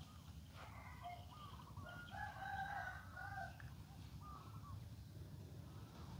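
Faint bird call: a drawn-out, crowing series of held pitched notes, starting about half a second in and ending at about four and a half seconds.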